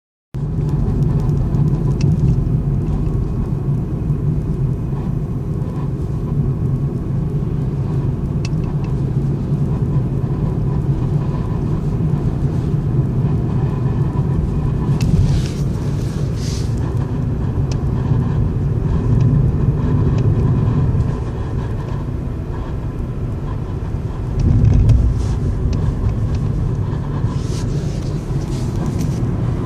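2013 Ford Fiesta SE automatic running, a steady low rumble with a faint steady whine on top. Several brief high scratching sounds come around the middle and again near the end. This is the grinding/scratching noise that the owner says comes from the engine.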